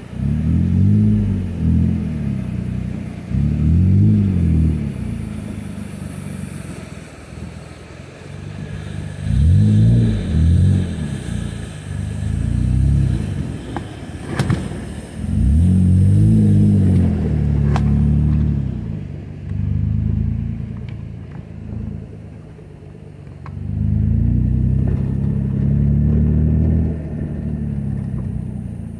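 Jeep engine revving up and easing off again and again as it crawls over uneven dirt and rock, with a couple of sharp knocks in the middle.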